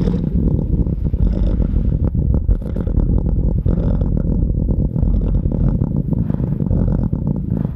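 Designed creature sound effect: a long, low, rattling purr that runs unbroken, made of many rapid pulses.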